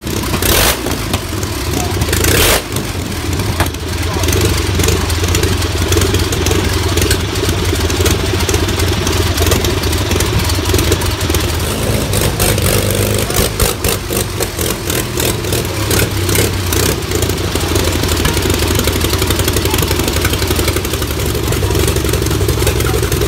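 Liberty V12 aero engine running through open stub exhaust pipes, a steady loud drone at idle, with two brief louder bursts in the first few seconds.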